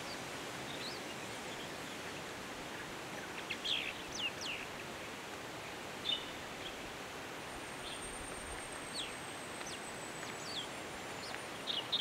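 Long-tailed shrike giving scattered short, high, downslurred notes of its subdued mimicking song, a few isolated and some in quick clusters, over a steady background hiss. A faint, thin, high tone drifts slowly downward through the second half.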